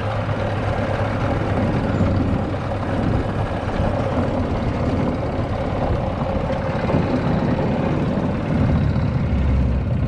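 Golf cart driving over grass, running steadily, with low, even noise from the cart and the air moving past.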